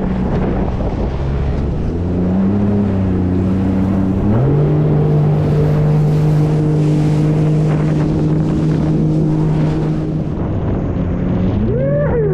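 Jet ski engine running under throttle with wind and water rushing past. Its pitch rises about two seconds in and again about four seconds in, holds steady, then dips and climbs again near the end.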